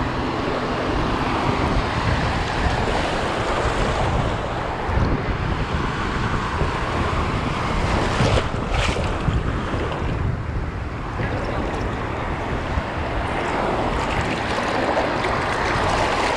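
Shallow surf washing and sloshing around the legs at the shoreline, with wind noise on the microphone.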